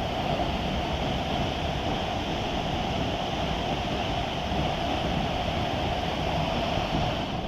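Steady rush of falling water from a river waterfall, an even hiss with no breaks.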